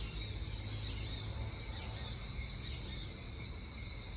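Outdoor insect chorus: a steady, high-pitched buzzing trill, with a series of thin, very high chirps a few times a second that stop about three seconds in, over a low rumble.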